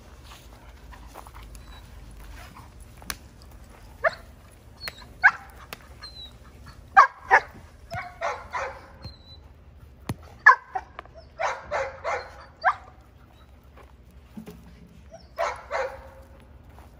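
Giant Schnauzer puppy barking in short, sharp bursts, several barks at a time with pauses between, as she is worked up with a rag tug in protection training.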